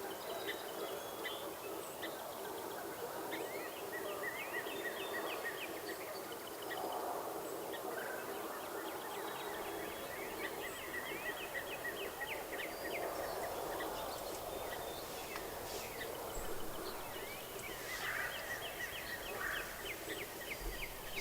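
Dawn bird chorus: songbirds giving repeated fast, high trills over a steady outdoor background.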